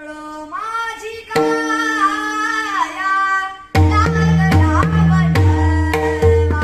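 A man singing a Marathi devotional song in a long, bending held line over a steady accompanying drone. About three and a half seconds in, a hand drum comes in with deep strokes in a steady rhythm.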